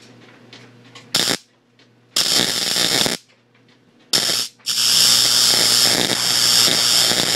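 Spark-gap Tesla coil switched on and off in four loud bursts of spark-gap noise, the last running about three seconds, with a faint low hum in the gaps between. The builder takes it for breakout arcing in the primary coil.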